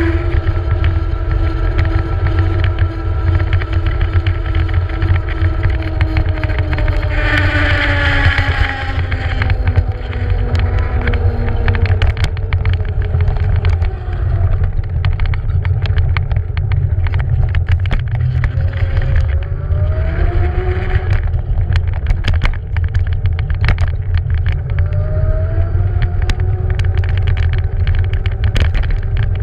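Ride on a Beaster BS11 electric scooter: steady low wind and road rumble, with the motor's whine falling in pitch as the scooter slows over the first dozen seconds and rising again twice as it speeds up. A brief high squeal comes about eight seconds in, and from about twelve seconds on the wheels click and knock over the joints of the paving tiles.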